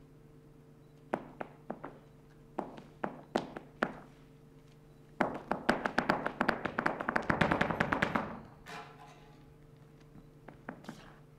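Flamenco footwork (zapateado): a dancer's shoes striking the stage floor. A few scattered stamps and taps come first, then a fast run of rapid strikes lasting about three seconds, then a few last taps near the end.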